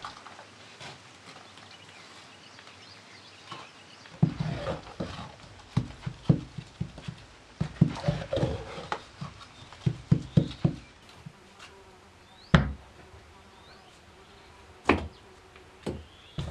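Wet clay and sand being mixed in a wooden box with a metal tool: a run of short wet slaps and squelching scrapes starting about four seconds in, then two sharper single knocks near the end.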